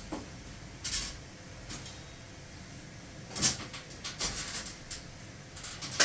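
Metal tubes of a folding mosquito-net frame clicking and knocking as the top rail is pulled out and adjusted: a handful of sharp clicks and clatters, the loudest about three and a half seconds in and at the very end.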